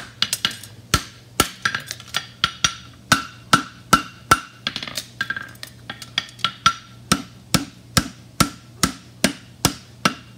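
Farrier's hammer striking a red-hot steel horseshoe held in tongs on the anvil, a steady run of blows about two to three a second, each with a short metallic ring, as the shoe's branch is bent and shaped over the anvil face and horn.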